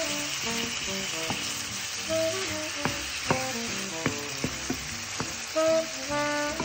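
Chicken pieces and tomato wedges sizzling steadily as they sauté in hot oil in a pan. They are stirred with a wooden spatula that knocks against the pan several times.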